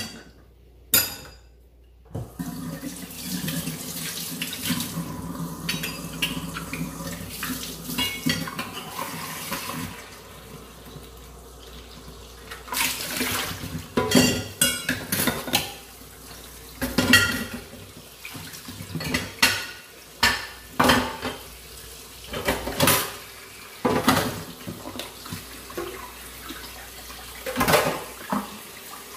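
Tap water running into a kitchen sink while dishes are washed by hand. The water starts about two seconds in and runs loudest for several seconds, then carries on more quietly under repeated clattering and clinking of dishes, pots and cutlery through the second half.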